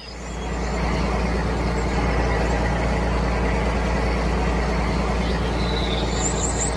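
Tractor engine running steadily, a dubbed engine sound effect that fades in over the first second.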